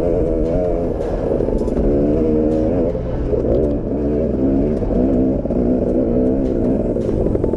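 Single-cylinder two-stroke engine of a KTM 250 XC-W dirt bike revving up and down with the throttle while riding over a rocky trail, with scattered sharp clicks and clatter.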